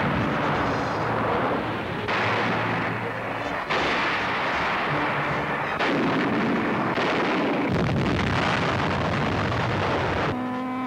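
Battle sound of tank guns and artillery firing, with shell explosions, in a dense continuous barrage whose character shifts every second or two. Near the end a falling whine begins.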